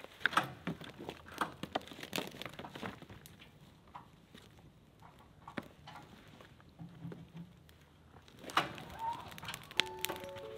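Scattered crackles, rustles and light knocks of cardboard and dry twigs being handled and dropped onto a small brush fire, busiest in the first few seconds and sparse in the middle. Music comes in near the end.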